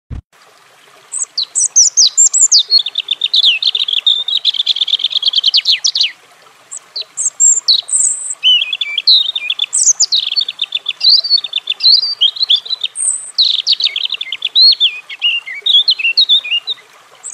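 European robin (Erithacus rubecula) calling in quick, high twittering phrases, with a short pause about six seconds in before the phrases resume.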